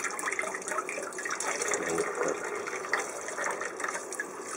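Tap water running and splashing into a stainless-steel bowl in a sink as raw yellowtail pieces are rinsed and rubbed by hand to wash off scales.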